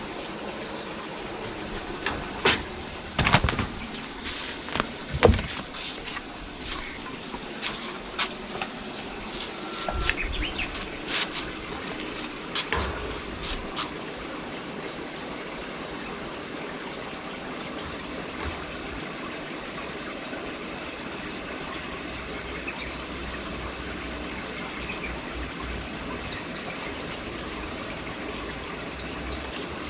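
Hollow knocks and clatters of plastic pipes being bumped and jostled by kittens playing in them, loudest a few seconds in and dying away about halfway, over a steady background hiss.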